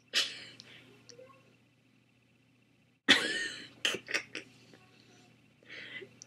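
Short breathy vocal sounds from a person close to the microphone, cough-like: one just after the start, a louder one with a few sharp clicks about three seconds in, and a softer one near the end.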